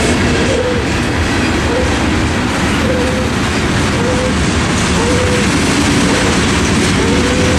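Norfolk Southern mixed freight cars rolling past at close range, wheels rumbling and clacking over the rails in a steady, loud run. A short ringing tone repeats about once a second over the rumble.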